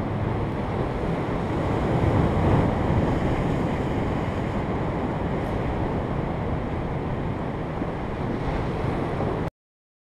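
Sea surf breaking on a rocky shore with wind buffeting the microphone, a steady rushing that cuts off suddenly near the end.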